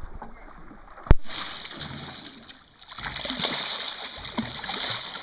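A hooked fish thrashing at the surface beside the boat, splashing water in two spells. A single sharp knock about a second in is the loudest sound.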